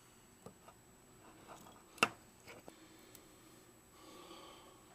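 Faint clicks and rustles as wires and a small flash circuit board are handled, with one sharp click about two seconds in.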